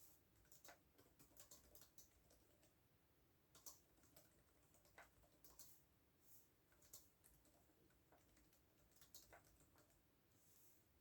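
Faint computer keyboard typing: irregular runs of soft key clicks with short pauses between them.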